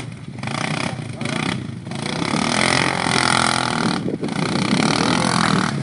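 ATV engine revving up and down, getting louder about two seconds in as it is ridden hard, with a brief drop in throttle near the middle.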